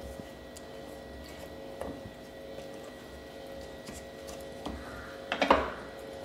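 Wooden spatula stirring tender mangoes through thick chilli pickle paste in a stainless steel bowl: soft, wet scraping, with a short cluster of sharper knocks near the end. A faint steady hum sits underneath.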